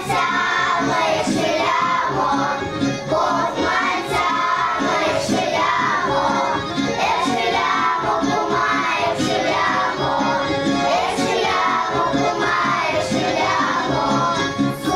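A group of young children singing a song together in unison, with instrumental accompaniment.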